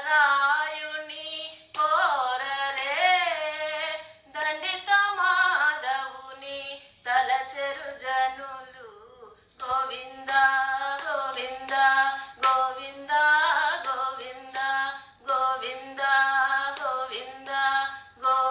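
A woman singing a devotional song in phrases of held, bending notes with short breaks between them; it cuts off abruptly at the end.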